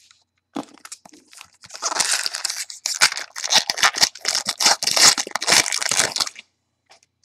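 A 2011 SP Authentic football card pack's foil wrapper being torn open and crinkled by hand: a run of crinkling and tearing rustles that starts about two seconds in and stops about a second before the end.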